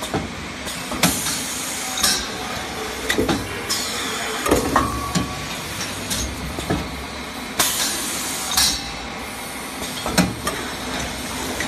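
PE film shrink-wrapping machine running steadily, with bottles knocking against each other and the guides as the conveyor carries them. Irregular knocks from the grouping and pushing mechanism mix with short hisses of compressed air from its pneumatic cylinders, every second or two.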